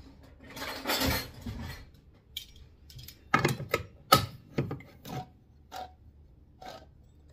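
Kitchen things being handled as beans and tomatoes are got out: a rustle about a second in, then a run of irregular sharp knocks and clicks.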